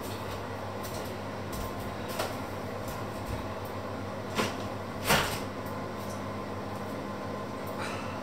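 A few short knocks and clatters, the loudest about five seconds in, from someone moving about a kitchen, over a steady low hum.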